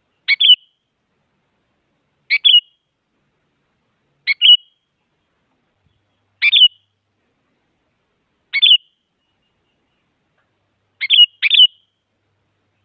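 Sooty-headed bulbul (kutilang) giving short chirping calls, each a quick cluster of two or three notes, repeated about every two seconds, with two calls close together near the end.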